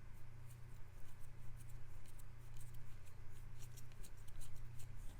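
Earbud cleaning pen scraping and clicking against the plastic inside an AirPods charging case well: an irregular run of small, sharp scratchy clicks, over a steady low hum.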